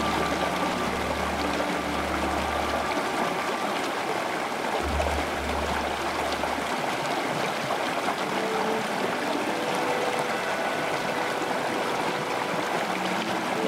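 A steady rush of running water, like a stream, with soft ambient music of long held low notes that shift pitch every few seconds.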